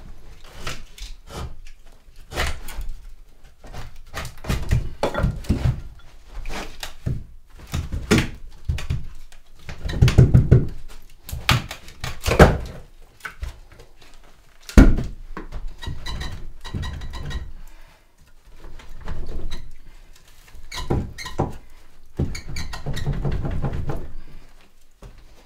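Irregular wooden knocks, thuds and scraping as pieces of old log are worked loose by hand at the edge of a window opening cut in a log wall. A few blows are louder, the sharpest about fifteen seconds in.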